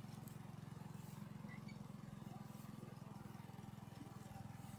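Small engine of a tracked moose-hauling machine (a snowmobile-style track with steadying side wheels) running steadily under load as it drags a shot moose.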